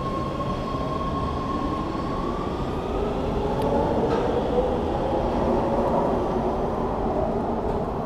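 Subway train pulling out of an underground station: a steady rumble with motor whine that climbs in pitch as the train gathers speed, loudest about halfway through.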